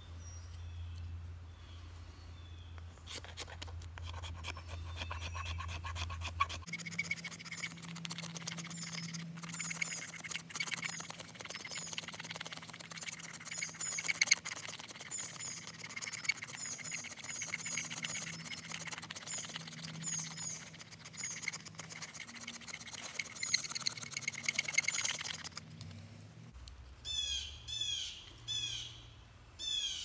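A Swiss Army knife blade scraping and shaving a stick of resinous fatwood in quick, repeated strokes, making fine dust and shavings. Birds chirp steadily behind it, with a few loud calls near the end.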